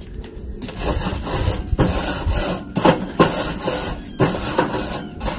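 Wire grill brush scraped back and forth across the hot cooking grate of a Weber Summit charcoal grill, cleaning it before the meat goes on. Repeated scraping strokes of about a second each begin about half a second in.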